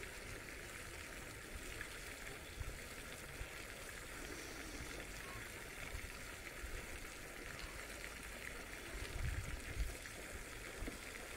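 Steady faint rush of running water, with a few low bumps about nine to ten seconds in.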